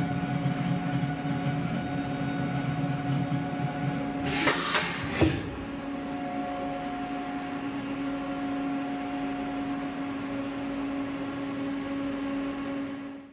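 Haas OM-2A CNC vertical mill running under power, a steady machine hum with several held tones. About five seconds in comes a brief rushing noise that ends in a sharp click.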